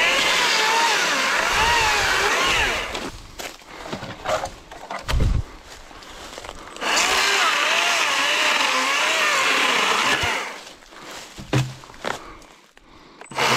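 Stihl MSA 120 C battery electric chainsaw cutting through a dry branch twice, its motor and chain whine wavering in pitch as the wood loads it. Between the two cuts there are scattered knocks and a thump, and it goes quiet near the end with no idling.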